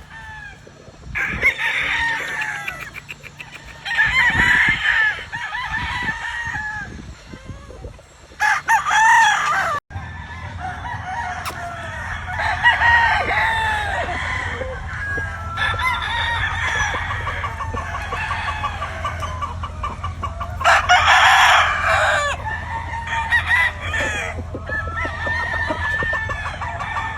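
Several gamefowl roosters crowing one after another and over each other, with hens clucking between the crows. A steady low hum runs underneath after an abrupt break about a third of the way in.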